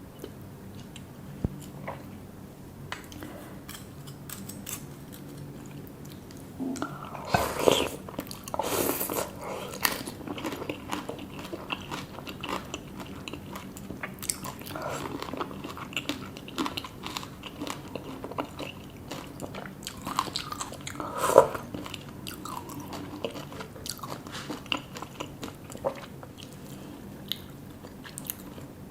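A person biting and chewing crunchy food, mukbang-style. It starts with scattered small clicks, turns into frequent crunching bites from about seven seconds in, and has a loud crunch about twenty-one seconds in.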